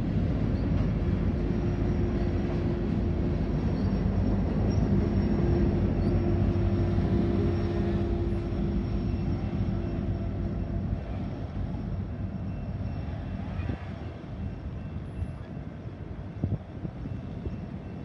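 Loaded freight rock train rolling through a grade crossing, with the rear distributed-power locomotive, a Union Pacific SD70ACE, running with a steady engine drone over the rumble of the cars. The sound fades after about ten seconds as the train moves away.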